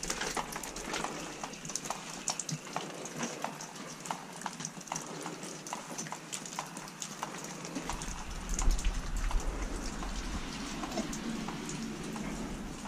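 Footsteps crunching and crackling over debris and litter on a wet, damaged floor: irregular sharp clicks, several a second, over a faint hiss, with a low rumble joining about eight seconds in.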